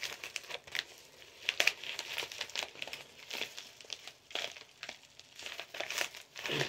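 Plastic bubble mailer crinkling and rustling in the hands as it is handled and folded, in irregular crackles.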